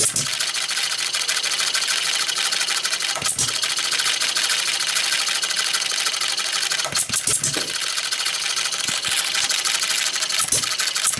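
Hand-built Farm Boy model engine, made to J.E. Howell plans, running steadily on its first run: a fast, even mechanical clatter, with a few heavier thumps.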